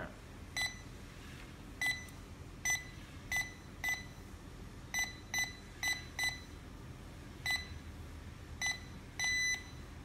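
DP-K7 GSM alarm panel's touch keypad giving a short high-pitched beep for each key pressed as a phone number is entered, eleven beeps at an uneven tapping pace. Near the end comes one longer beep as the number is confirmed and the panel moves on to the next phone-number slot.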